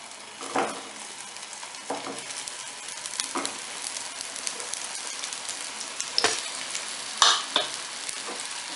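Sweet potato cutlets being laid one at a time into hot oil in a frying pan: a steady sizzle that slowly grows louder, with a sharper burst of sizzling about five times as each cutlet goes in.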